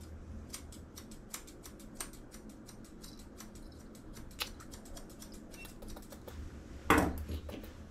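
Grooming scissors snipping the hair on a dog's muzzle, in quick irregular snips several a second. A short, louder sound comes near the end.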